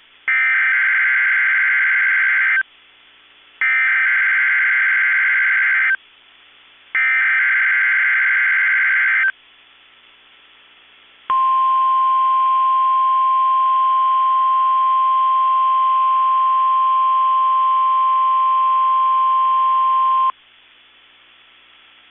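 NOAA Weather Radio Emergency Alert System (SAME) header sent three times as a screechy digital data burst of about two seconds each, a second apart. This is followed by the 1050 Hz weather radio warning alarm tone, one steady high tone held for about nine seconds. Together they open a required weekly test of the alert system.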